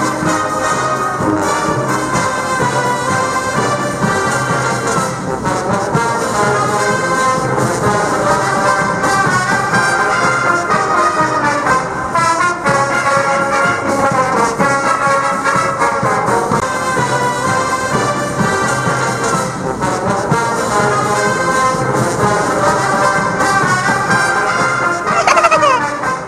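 Massed military brass bands playing together, with trumpets, trombones, horns and sousaphones. A brief falling glide sounds near the end.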